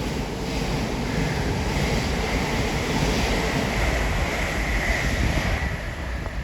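Train passing at speed: a steady rushing noise of wheels on rail and moving air, with a faint high whine, dying away near the end.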